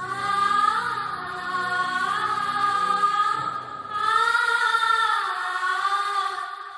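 A high solo voice singing a slow, ornamented melody, holding long notes and sliding between them.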